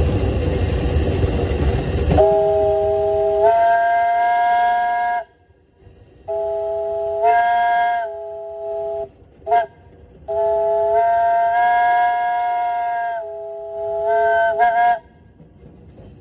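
The chime steam whistle of Shelby and Southern No. 3, a 1975 Crown Metal Products 24-inch-gauge steam locomotive, sounding a chord of several notes in four blasts: long, long, short, long. This is the pattern of a grade-crossing signal, and the chord shifts as the cord is pulled. Before it, a loud rushing hiss stops about two seconds in.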